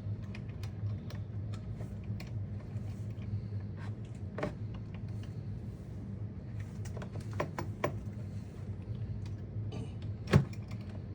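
Papers and small drawers inside an old safe being handled: scattered rustles and clicks, with one sharp knock near the end, over a steady low hum.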